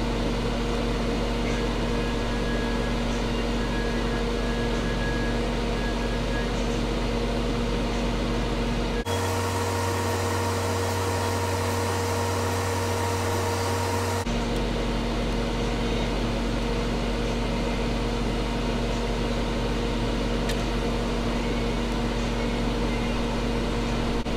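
Hot oil sizzling steadily as a small plantain slice fries in a deep pot with a frying basket, with light scattered pops over a steady mechanical hum. The sound shifts abruptly about nine seconds in and again about five seconds later.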